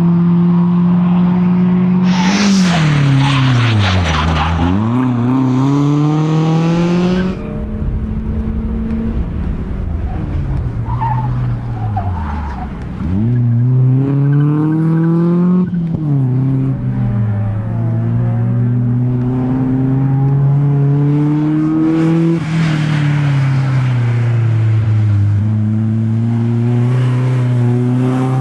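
BMW E36 coupe race car's engine under hard driving: its revs drop sharply twice and climb again as it brakes and accelerates, then it holds and rises on the power. Tyres squeal through a corner a couple of seconds in.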